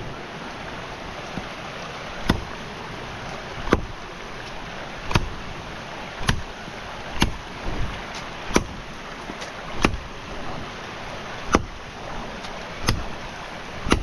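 Wood being chopped with a blade: a sharp chop every second or so, about ten in all, over a steady rushing noise.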